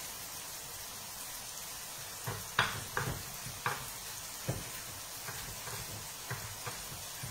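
A knife chopping parsley on a wooden cutting board, irregular knocks starting about two seconds in. Under them runs the steady sizzle of zucchini frying in a pan.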